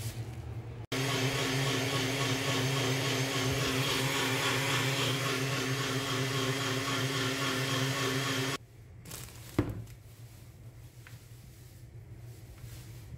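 Electric blender motor running at a steady speed for about eight seconds, starting and stopping abruptly, with an even hum under a noisy whir.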